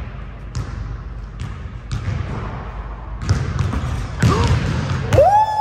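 Basketball dribbled and bouncing on the court floor, a series of sharp bounces. Near the end comes a loud, high-pitched squeak that rises and then holds.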